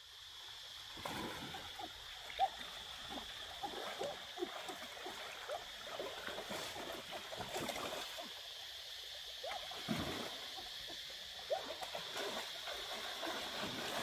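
Water splashing and trickling, with many small rising gurgles and drips, over a steady high-pitched drone.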